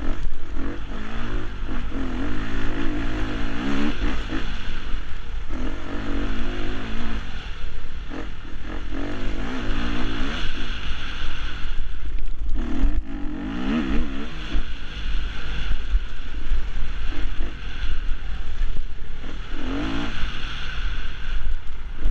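Four-stroke Husqvarna enduro motorcycle engine being ridden hard, revving up in repeated bursts of acceleration and easing off between them, with the bike clattering over bumps and wind rumbling on the microphone.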